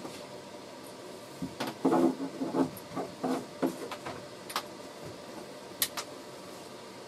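Knocks, clunks and rustling from a person moving about and handling things inside a motorhome, bunched together in the first half, then two sharp clicks near the end.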